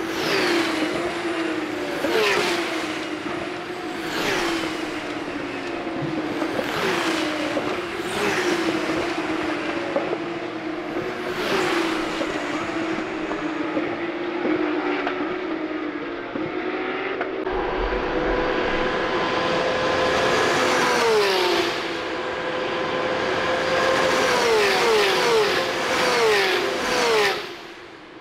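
Porsche 911 GT3 Cup (Type 992) race cars with 4.0-litre naturally aspirated flat-six engines, passing at high revs. The engine note drops in repeated steps as the cars downshift under braking. About two thirds of the way through one note is held steady before another run of quick downshifts near the end.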